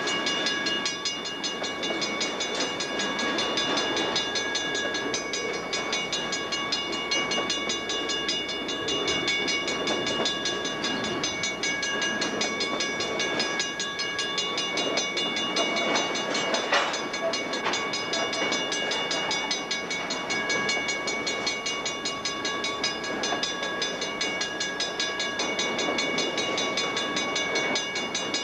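CSX double-stack container train rolling past at close range: a steady rumble and rattle of steel wheels on the rail, with a few sharp clanks partway through. A steady high tone runs underneath.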